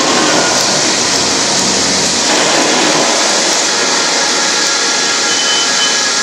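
Loud, steady rushing noise like heavy surf. Its lower part changes texture a little over two seconds in.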